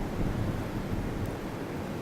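Strong blizzard wind buffeting the microphone: a gusty low rumble that rises and falls.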